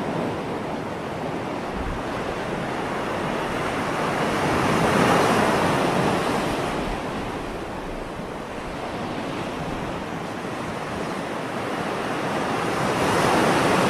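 Sea waves breaking on rocks: a continuous rush of surf that swells twice, about five seconds in and again near the end.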